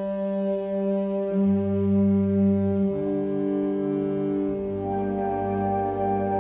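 Concert wind band playing a slow passage of held chords, the notes changing together every second or two. A lower part comes in about a second and a half in, and more parts join about three-quarters of the way through.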